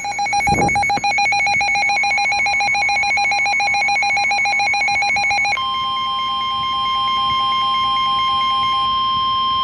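Weather radio alert: a fast warbling electronic alarm switching rapidly between two pitches. About five and a half seconds in, the NOAA Weather Radio 1050 Hz warning alarm tone comes in as one steady tone, with slower pulsed beeps under it for a few more seconds. The alert signals a severe thunderstorm warning.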